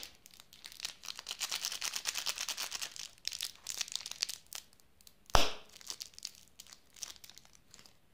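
Small plastic candy wrapper crinkled and torn open by hand: dense crinkling at first, one sharp snap about five seconds in that is the loudest sound, then lighter, scattered crinkles.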